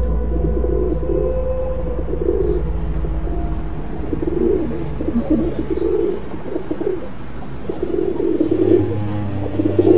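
A flock of feral pigeons cooing, many calls overlapping in irregular waves over a low steady hum.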